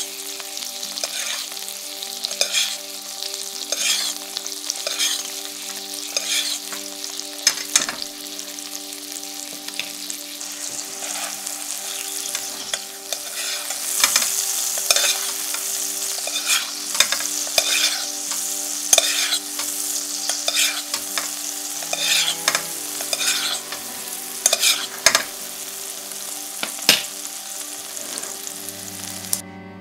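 Pork chops sizzling in hot butter and oil in a frying pan, with a metal spoon repeatedly clinking and scraping against the pan as the fat is spooned over them. The sizzle cuts off suddenly near the end.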